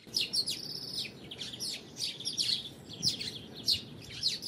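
European greenfinch singing: a fast run of short, falling chirps and twitters, several to the second.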